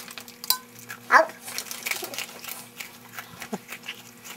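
A person chewing food with the mouth open close to the microphone, making wet smacking and crunching clicks, with one short falling squeal about a second in.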